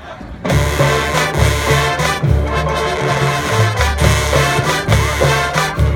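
A marching band strikes up suddenly about half a second in: brass playing over a stepping low bass line, with drum hits.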